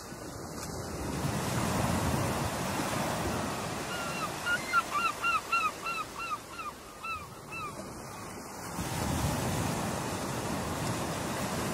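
Ocean surf washing in, swelling up twice. About four seconds in, a bird calls in a quick run of about a dozen short, hooked notes that lasts roughly four seconds.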